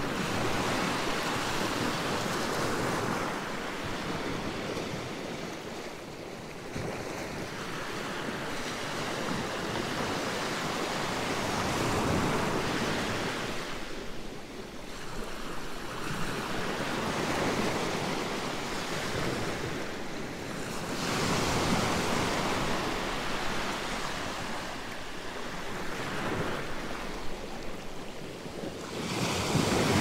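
Gentle sea waves washing in over sand and rocks, swelling and ebbing every few seconds. A louder wave breaks against the rocks near the end.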